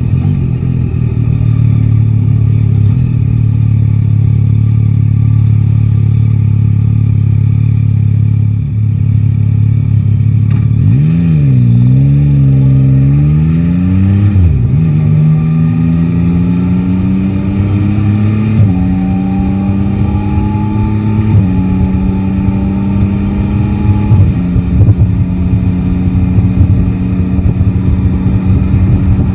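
Yamaha Tracer 9 GT's 890 cc inline-three engine running steadily for about ten seconds. After a brief rise and fall in revs, it accelerates through the gears: the pitch climbs and drops back at about four upshifts, then settles into a steady cruise with more road and wind noise.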